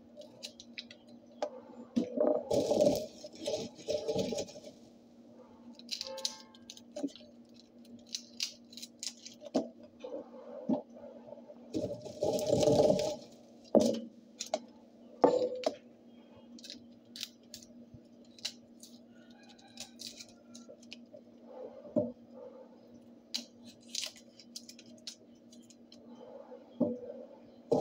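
Dishes being washed by hand at a kitchen sink: scattered clinks and knocks of dishes and utensils against each other and the sink. There are two longer rustling, rushing spells, about two and a half and twelve seconds in, all over a steady low hum.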